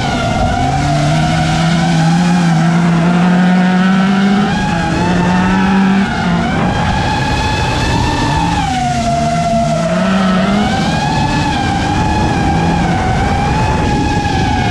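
Engines of touring-class autocross race cars running hard during a race, several engine notes rising and falling in pitch as they rev and lift off.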